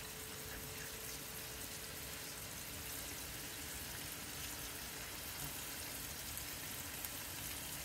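Hamburger steak patties and mushrooms frying in skillets, a steady, even sizzle.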